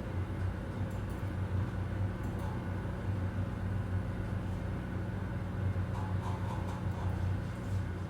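Office ambience: a steady low mechanical hum, like air conditioning or ventilation, with a few faint scattered clicks.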